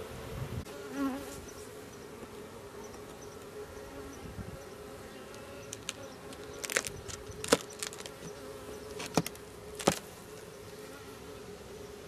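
A mass of honey bees buzzing at a hive, a steady droning hum. Several sharp clicks or knocks come in the second half.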